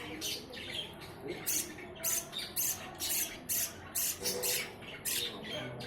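Budgerigar chicks begging while being fed: short, hissy squawks repeated about twice a second.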